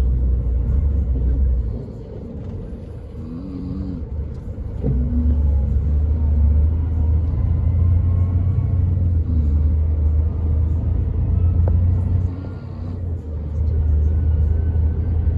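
Scania K440 coach's inline-six diesel engine running with a deep, steady rumble that eases off briefly about two seconds in and again near the end.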